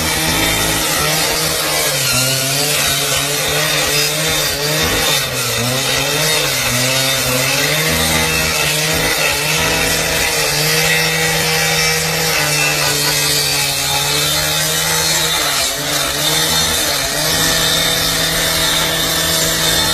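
Cordless angle grinder cutting into a steel pole, sparks flying: a continuous loud motor whine over a harsh grinding hiss, its pitch wandering up and down as the disc bites into the metal.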